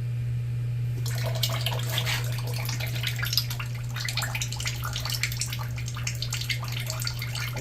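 Engine oil pouring and splashing into a drain pan as the oil filter comes off, starting about a second in, over a steady low hum. The oil runs out clean, with no sign of water from the flooding.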